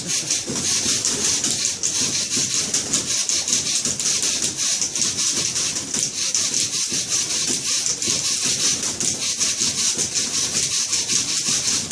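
Several manual typewriters played together as percussion: a dense, steady clatter of rapid key strikes.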